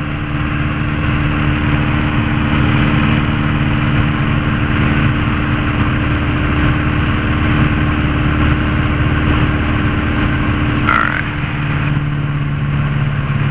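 Piper Archer's four-cylinder Lycoming O-360 aircraft engine, heard inside the cockpit, running up loud and steady at full throttle on the ground while the mixture is leaned for best power at a high-altitude field. Near the end the power is brought back and the engine note drops.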